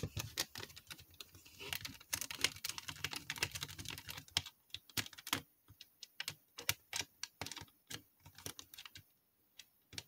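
Small screwdriver backing screws out of an Xbox One controller's plastic shell: a run of irregular light clicks and ticks, with the screws threaded straight into the plastic.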